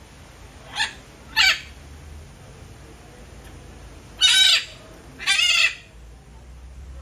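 Red-fronted macaw giving four loud squawks: two short ones about a second in, then two longer ones past the middle.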